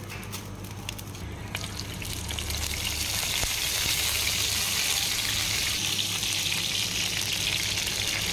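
Oil poured into a frying pan, then a steady sizzle builds from about two seconds in as curry leaves fry in the hot oil.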